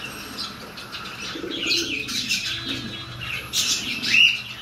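Domestic pigeons cooing low, with short rising chirps from birds in the loft, one near the end.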